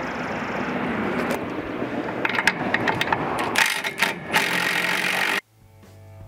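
Cordless drill run in short bursts on the bolts of a hovercraft's engine frame, after a stretch of rough, steady handling noise. It cuts off suddenly near the end, and faint music begins.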